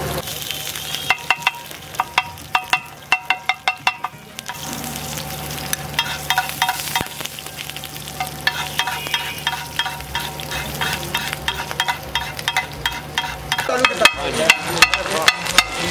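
Mutton chops sizzling as they fry in desi ghee on a large tawa, with metal spatulas clinking and scraping against the griddle in quick runs of strikes, in two spells, the second busiest near the end. A steady low hum runs underneath.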